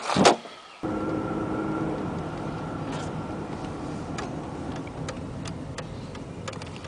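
A loud thump just after the start as a sedan's door is shut, then, from about a second in, the car's steady engine and tyre noise heard inside the cabin while it drives along, with a few faint ticks.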